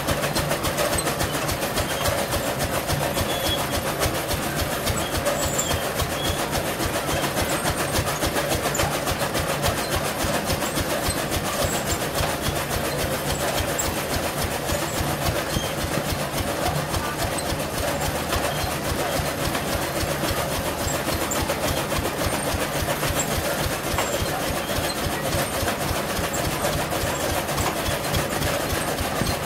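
Powered chaff cutter running steadily while green maize stalks are fed into it, its blades chopping with a fast, even clatter over a steady machine hum.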